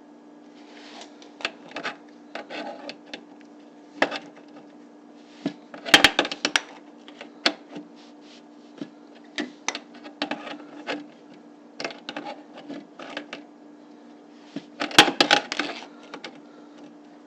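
Hands working with tools and fittings: scattered clicks, knocks and rattles, with two louder bursts of clatter about six seconds in and near the end, over a steady low hum.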